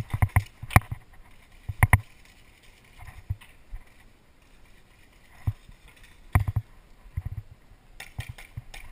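Paintball markers firing: sharp pops in quick groups of two or three, the loudest in the first two seconds and more near the end.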